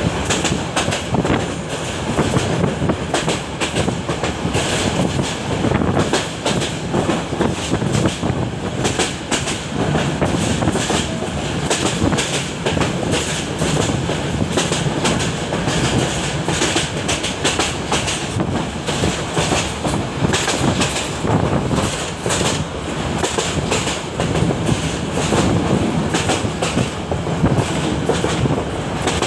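Train running, heard from on board: a steady rumble with the wheels clattering over the rails.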